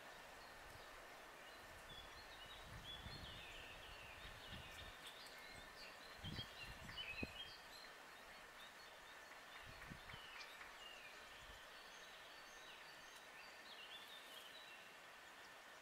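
Faint woodland birdsong: several small birds chirping and twittering in short phrases throughout, over a steady background hiss. A few soft low rumbles come and go, the strongest about six to seven seconds in.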